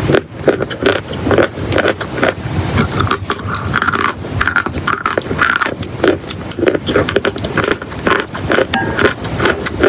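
Close-up crunching of dry chalk and clay: a dense, unbroken run of irregular crackles and snaps.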